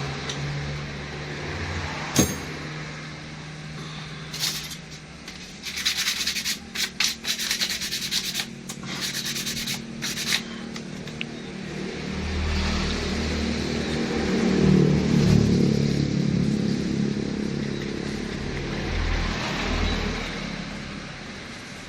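Quick rubbing and scrubbing strokes, as of parts being cleaned by hand, with a sharp click about two seconds in. A low rumble swells up in the second half.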